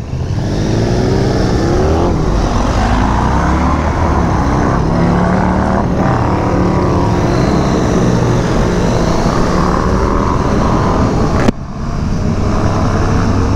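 KTM motorcycle engine running under throttle while riding, its note rising and falling with the throttle, over wind noise. About three-quarters of the way through, the sound breaks off suddenly and picks up again as a steadier engine note.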